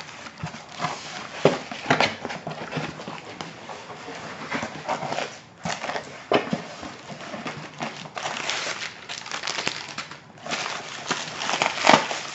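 Packaging being unwrapped and handled: paper and plastic crinkling and rustling, with many small crackles and taps, pausing briefly twice.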